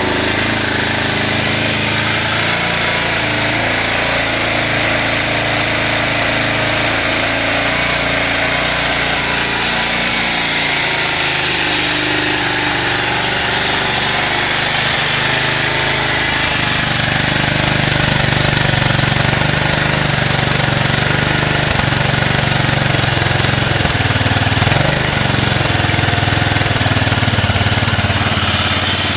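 BMW F650 Funduro's single-cylinder four-stroke engine idling steadily through its silencer, a little louder for a stretch in the second half.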